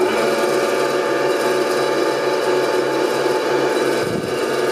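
Delta 9-inch benchtop bandsaw running at speed with no load: a steady, even motor hum and blade whir. It is being run freely to check the newly set blade guides and bearings.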